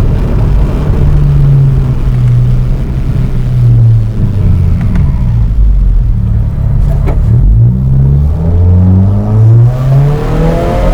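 Subaru WRX's 2.0-litre turbocharged boxer four running under load through its CVT, heard onboard. The low engine and exhaust note holds fairly steady, drops about seven seconds in, then climbs in a few quick steps as the car accelerates.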